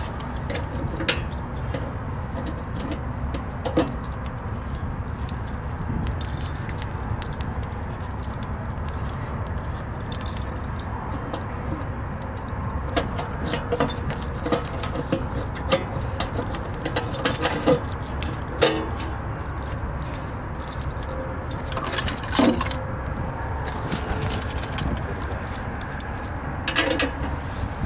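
Keys jangling, with scattered metallic clicks and rattles of a padlock and a steel box lid being worked, over a steady low rumble.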